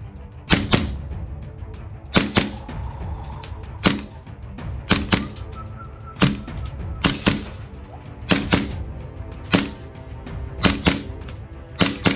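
Tan plastic toy pistol clicking sharply again and again, about every second and a half, often as quick double clicks, over background music.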